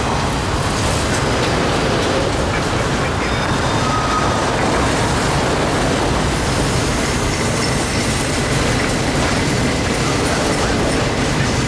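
Autorack freight cars rolling steadily past, their wheels running on the rails in a continuous even rumble, with faint high wheel squeal here and there.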